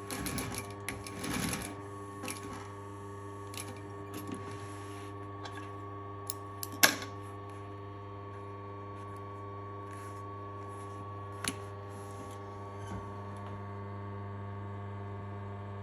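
Industrial needle-feed sewing machine: a short run of stitching in the first couple of seconds, then the clutch motor humming steadily at idle. A few sharp clicks come over the hum, the loudest about seven seconds in and another at about eleven and a half seconds.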